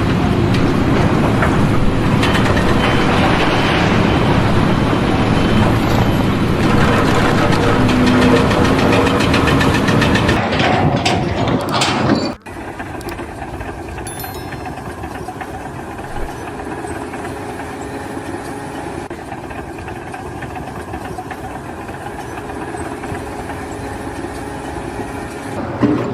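Loud engine and machinery noise, which cuts off abruptly about halfway through to a quieter, steady engine hum.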